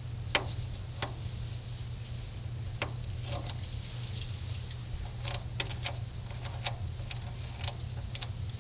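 Scattered light clicks and taps from hands and tools working around a truck battery, coming irregularly, never more than a couple a second, over a steady low hum.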